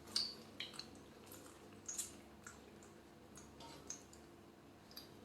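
Faint water drips and small splashes, scattered and irregular, as a baby monkey's hand is washed at bath time.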